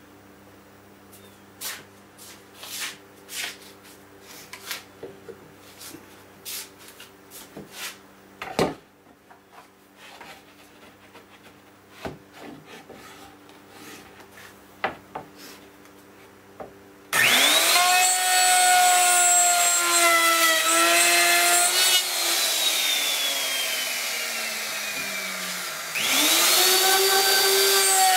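Knocks and clicks as a router and its fence are set on a plywood panel, then a little past halfway an electric router with a 1/4-inch bit spins up with a rising whine and cuts a groove across the end of a maple plywood cabinet side. It is switched off and winds down with falling pitch, then started again near the end.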